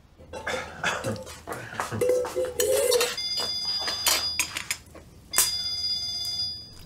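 Clatter of china dishes, glasses and cutlery on a laid table. Two clinks, one about three seconds in and one later, ring on.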